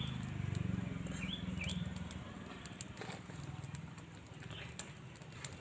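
Small twig fire crackling with scattered faint clicks under a banana leaf held over the flames to wilt it, with a low rumble that fades after a few seconds. A bird chirps briefly about a second and a half in.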